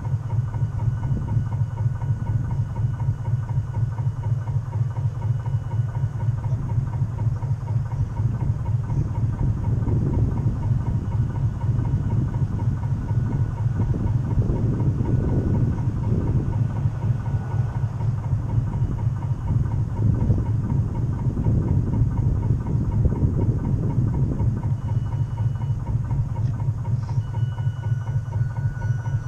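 Steady low throbbing from a radio-controlled model boat's drive as the boat cruises, heard on board through the hull.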